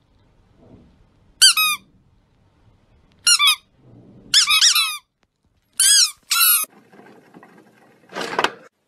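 A squeaky toy squeaking about six times in short high-pitched squeaks, some in quick pairs, as the cat's cheeks are squeezed. Near the end a short rushing noise.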